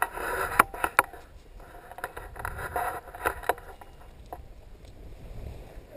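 Wind buffeting the camera microphone as a low rumble, with rustling and a few sharp clicks from handled harness gear and the camera pole.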